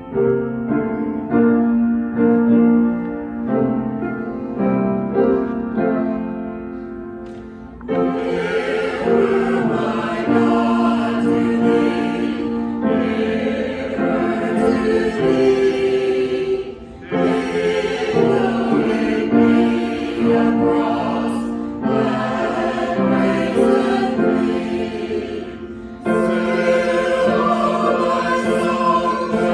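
Choral music: a choir singing, quieter for the first eight seconds, then fuller from about eight seconds in.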